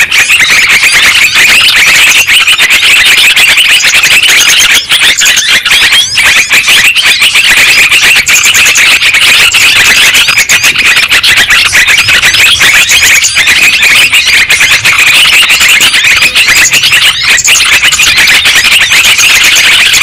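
A loud, unbroken din of many yellow-vented bulbuls (trucukan) chattering and scolding together, the noisy flock call played as a lure to draw wild birds down.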